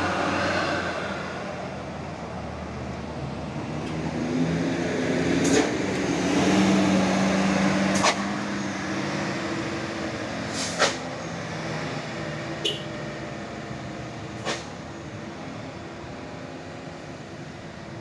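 Tour bus diesel engine pulling hard up a steep hill, its note rising and strengthening a few seconds in, then fading as the bus climbs away. A few short sharp clicks punctuate it.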